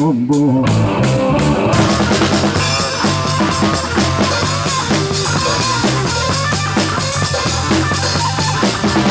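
Live rock band playing: drum kit with cymbals and electric guitar. The drums and cymbals come in fully about two seconds in.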